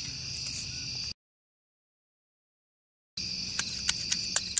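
Crickets trilling steadily, broken by about two seconds of dead silence a second in. After the silence come several short sharp clicks of a shovel blade digging into dirt.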